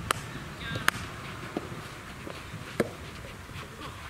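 Soft tennis rackets striking the rubber ball in a rally: three sharp hits, one at the start, one about a second in and one near three seconds in.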